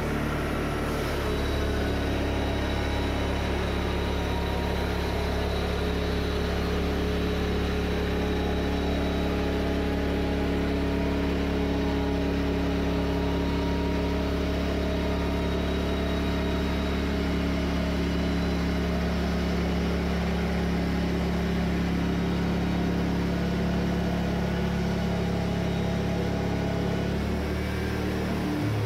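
Wood-Mizer LT40 band sawmill running under load, its engine and band blade cutting a lengthwise board off a large white cedar log. The sound is steady, then changes about a second before the end as the cut runs out.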